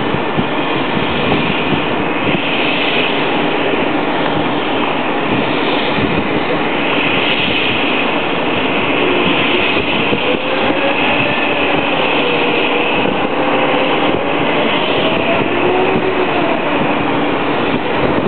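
Twin-engine turbofan jet noise from an Airbus A300-600 on final approach to landing: a loud, steady rushing sound with no break. About halfway through, a faint tone weaves up and down in pitch for several seconds.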